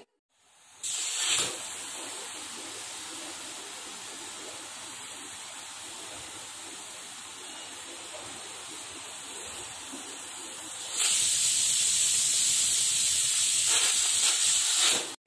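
Pressure cooker on a gas stove, hissing steadily as steam escapes. About eleven seconds in the hiss gets much louder as steam blows out around the lid and weight valve.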